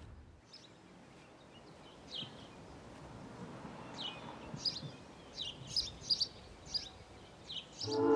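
Quiet outdoor ambience with birds chirping: about ten short, high chirps, sparse at first and more frequent in the second half. Music comes in right at the end.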